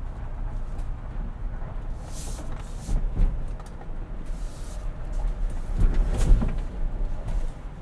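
Cabin noise of a Ford Bronco with a 2.7 L twin-turbo V6 crawling off-road: a steady low engine and drivetrain rumble. There are a couple of dull thumps, one about three seconds in and a louder one around six seconds.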